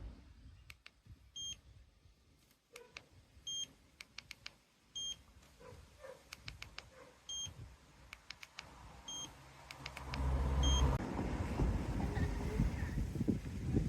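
Electric scooter's electronic beeper giving short high beeps every one and a half to two seconds, with small clicks in between. From about ten seconds in, a louder low rumbling noise joins, as of the scooter running.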